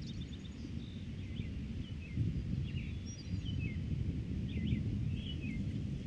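Wind blowing over the microphones as a low, uneven rumble, with songbirds chirping short, quick calls on and off throughout.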